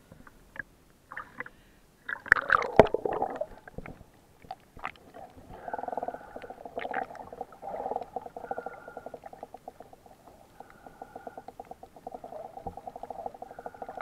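Water splashing as the camera dips below the sea surface about two seconds in, then muffled underwater sound with gurgling and rapid crackling over a reef, a faint higher tone coming back every two to three seconds.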